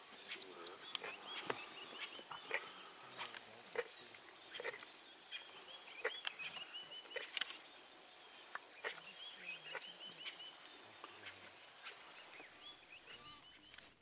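Birds chirping in short repeated hooked calls, with scattered sharp clicks and snaps.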